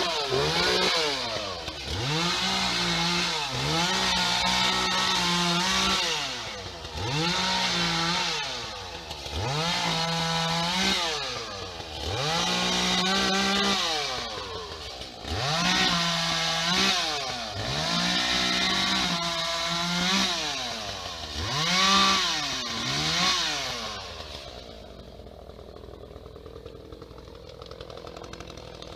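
Two-stroke chainsaw repeatedly revved to full throttle about nine times, each time held high for a second or two and then falling back, as it cuts through tree limbs. Near the end the revving stops and the sound drops to a low level.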